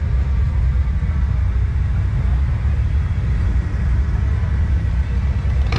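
Steady low rumble of motorcycle engines running.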